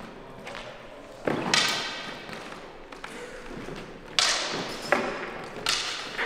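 White synthetic feders (two-handed sparring swords) clashing and striking during a bout. A pair of sharp clacks comes about a second in, and a quicker run of four comes in the second half, each with a short ringing tail in the hall.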